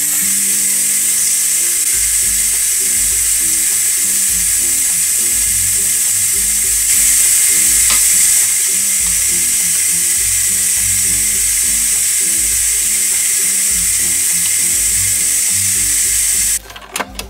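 Ninja Foodi pressure cooker venting steam through its pressure-release valve, opened by hand for a quick release: a loud, steady hiss that swells briefly about halfway through and cuts off suddenly near the end.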